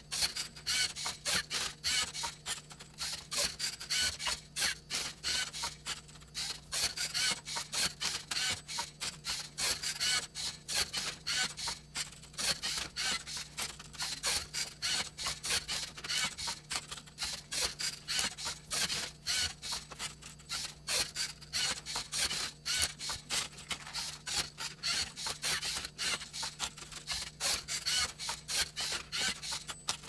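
Lego Mindstorms NXT servo motors whirring through quick short moves as the robot turns and flips a Rubik's Cube. It makes a steady, uneven stream of plastic clicks and clacks, several a second.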